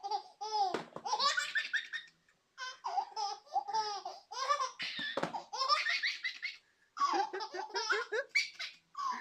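A baby laughing hard in repeated bouts of high-pitched belly laughs, broken by short pauses, with a dull low thud about a second in and another around five seconds in.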